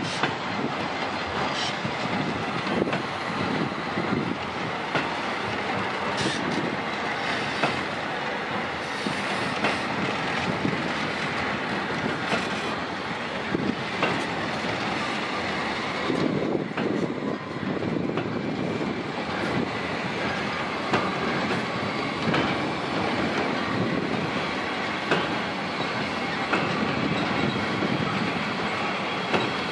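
Freight wagons, cement hoppers and covered boxcars, rolling past close by. Their wheels make a steady rumble, with irregular clacks and knocks over the rail joints.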